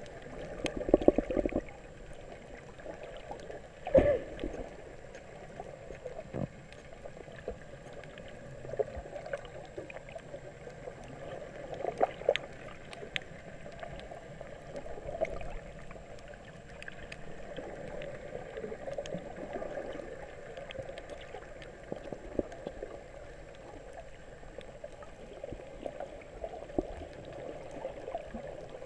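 Muffled underwater sound heard by a camera in its waterproof housing while snorkeling: a dull watery rush that swells and fades, with scattered clicks and a few thumps, the loudest at about four seconds.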